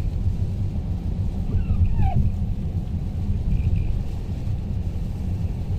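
Strong storm wind buffeting the microphone: a steady, heavy low rumble.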